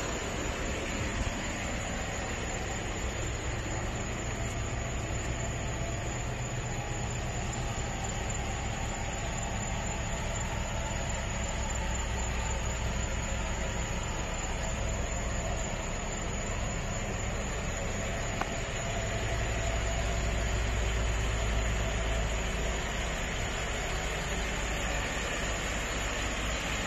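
Vehicle engine running steadily: a low hum under a steady hiss, swelling slightly twice.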